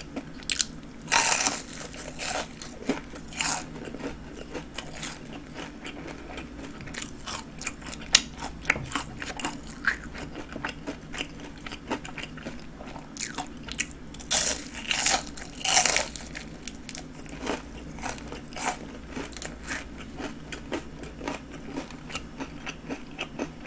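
Crunching bites and chewing of breaded deep-fried king prawns: the crisp coating cracks in irregular runs of crunches. The loudest clusters come a second or two in and again about fifteen seconds in.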